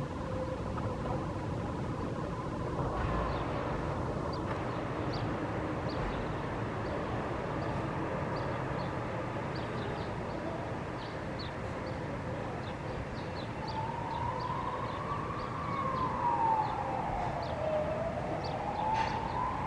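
Steady city traffic noise with short high chirps scattered through it; about two-thirds of the way in, an emergency-vehicle siren starts wailing, its pitch rising and falling slowly in sweeps of about two seconds.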